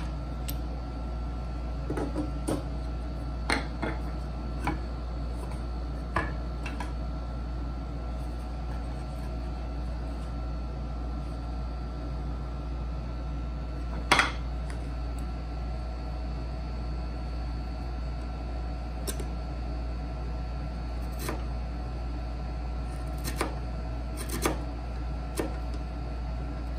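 Sparse, irregular light knocks and clicks of hand tools and wood on a workbench during hand-cut dovetail work, with one sharper knock about halfway through, over a steady background hum.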